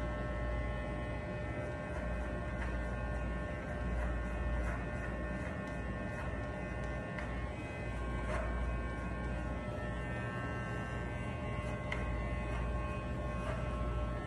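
Corded electric hair clipper buzzing steadily as it cuts hair, with faint crackles now and then from the blades going through the hair.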